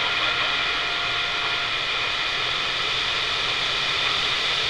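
CB radio receiver hissing with steady band static and a few faint steady whistling tones, the open channel between transmissions.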